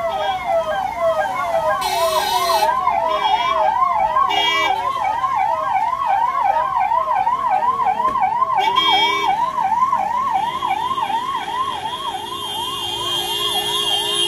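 Electronic yelp siren of a police convoy vehicle, a fast rising-and-falling wail about two and a half times a second, with a few short steady-pitched horn blasts over it.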